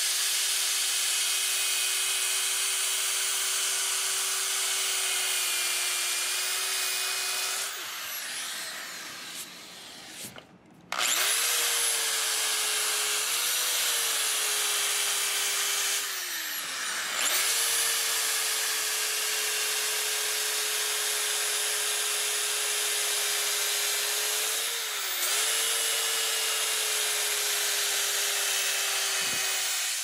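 Power drill with a sanding disc sanding a carved wooden guitar body: the motor whines steadily under the hiss of the abrasive rubbing on the wood. It stops about a quarter of the way through and starts again a few seconds later, slows briefly twice, and winds down just before the end.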